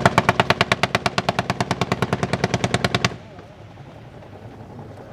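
Heavy machine gun on an AAV7 amphibious assault vehicle firing one long, steady burst of about ten shots a second, which stops after about three seconds.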